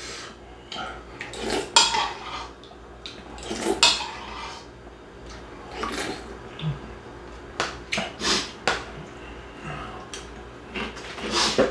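Metal spoon clinking against a ceramic soup bowl again and again, a dozen or so short sharp clinks spread across the few seconds. Between them come sips of hot beef-bone soup from the spoon.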